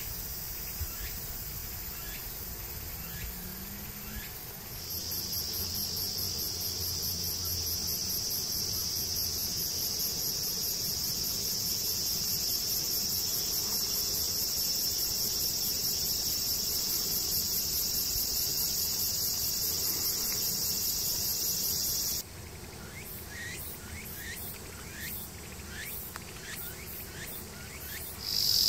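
A chorus of insects buzzing steadily at a high pitch. It grows louder about five seconds in and stops abruptly about 22 seconds in. A fainter insect buzz and a run of short rising chirps follow.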